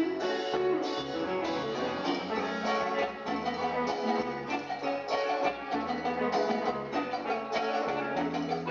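Live Peruvian cumbia band playing, with electric guitar prominent over bass, keyboard and percussion, keeping a steady dance beat.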